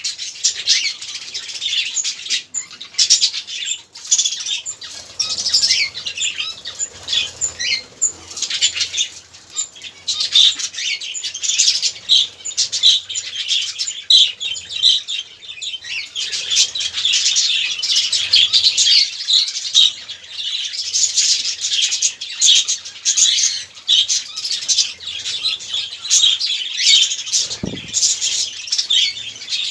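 A breeding colony of budgerigars chattering and chirping continuously, a dense mix of many short high calls and warbles, with wing flutters now and then as birds fly about.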